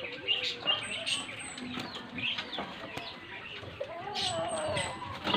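Backyard chickens clucking and calling, with a small bird's short high chirps, three in a row, twice.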